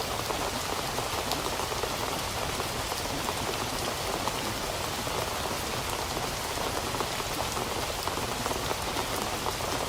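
Steady rain falling: an even hiss dotted with many small drop ticks, unchanging throughout.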